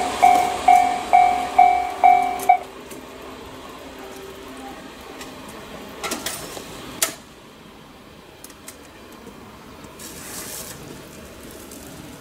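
Railway level crossing alarm ringing in even pulses, about two a second, that stops abruptly about two and a half seconds in. After it, the faint running noise of a train, with a few sharp clicks around the middle.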